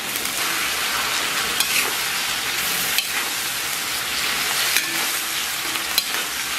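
Lamb ribs and sliced onion sizzling in hot oil in a wok while being stir-fried with a metal spatula. The spatula scrapes and clicks against the pan every second or so.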